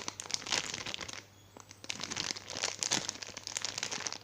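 Plastic packaging crinkling as it is handled, in two rustling stretches with a short pause about a second in.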